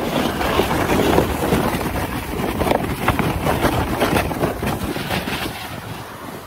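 A sled sliding fast down a snowy hill, its base scraping and hissing over packed snow with bumpy crackles, and wind buffeting the microphone; the noise dies down near the end as the sled slows.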